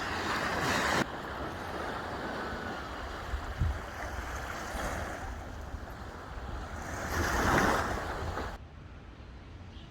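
Sea waves washing onto the shore, with two louder surges of surf, one at the start and one about seven seconds in, and a low wind rumble on the microphone. The sound cuts off suddenly about eight and a half seconds in, leaving a fainter hiss.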